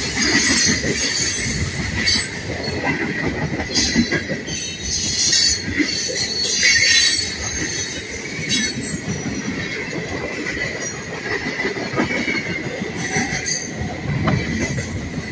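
Cars of a CSX mixed freight train rolling past close by: a steady rumble of steel wheels on the rails, with a thin held squeal and repeated sharper screeches from the wheels.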